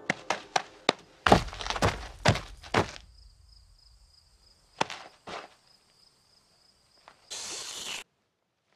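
Cartoon sound effects: about four light taps followed by about five heavier thuds, as the animated kiwi moves to the nugget and pecks at it. These give way to a thin high steady tone with two clicks, and a short hiss that cuts off suddenly.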